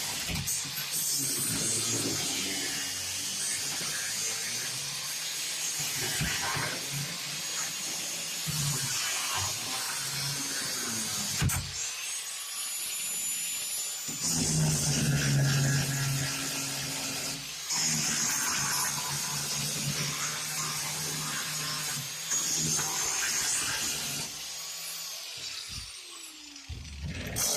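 A grinder with a thin grinding wheel cutting a slot into the sheet-steel bed of a 1968 Chevy C10 pickup, a high whine over rough grinding noise. It stops and restarts several times, its pitch falling as the wheel spins down between cuts.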